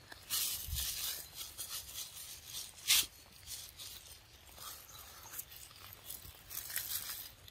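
A monkey biting and tearing into a ripe fruit, with bursts of wet tearing and crunching and one sharp click about three seconds in.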